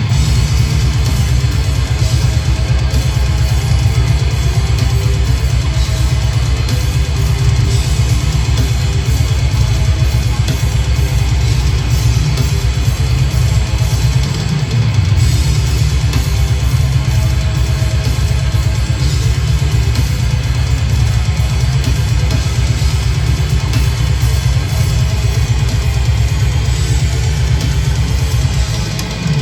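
Heavy metal band playing live: distorted electric guitars and bass over a fast, driving drum kit with dense bass drum, loud and without a break.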